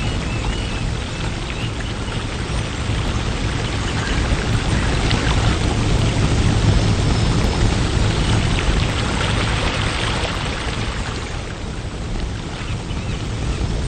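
Water splashing steadily into a pool from a sheer-descent water feature: a continuous rushing, spattering hiss that eases a little near the end.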